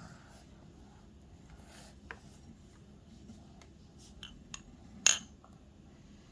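Spoon and dishes clinking during baby-food feeding: a few scattered short clicks, with one louder clink about five seconds in.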